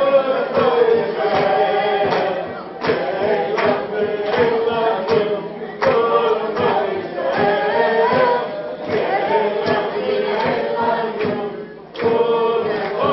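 A crowd of people singing a lively song together, with a steady sharp beat running under the voices.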